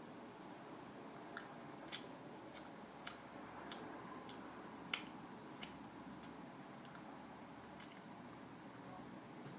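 Someone chewing frozen fruit: faint, irregular crisp crunches and clicks, about seven in all, the sharpest about five seconds in.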